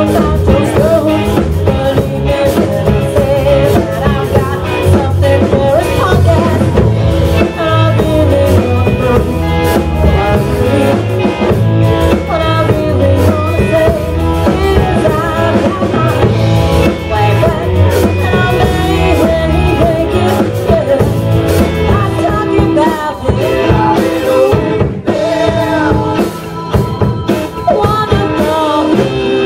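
Rock band playing: singing over electric bass, electric guitar and drums.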